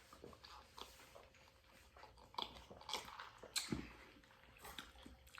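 A man biting and chewing French fries, with soft wet mouth sounds and a few short smacks and clicks, most between about two and five seconds in.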